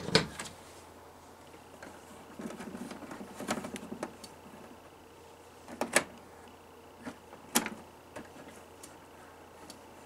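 Plastic handling noise and a few sharp clicks as a Hunter 32500 humidifier is plugged in and its top controls are handled, over a faint steady hum.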